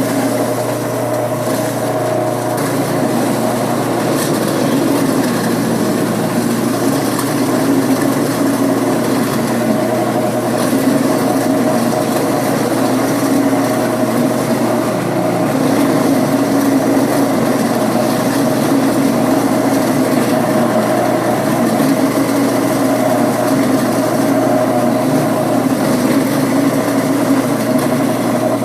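Whiz Bang apple grinder running steadily as it grinds apples into mash, a constant machine hum with slight swells in level.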